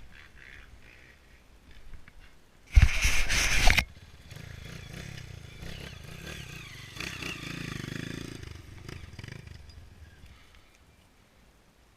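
A loud burst of noise lasting about a second, a few seconds in, then a trail motorcycle's engine running at low revs, swelling for a moment and fading away.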